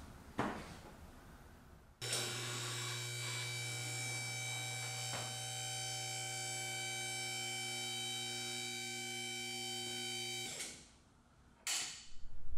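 Electric motor and hydraulic pump of a portable scissor car lift running steadily for about eight and a half seconds as the lift raises the car. The motor starts and stops abruptly. There is a click shortly before it starts and another shortly after it stops.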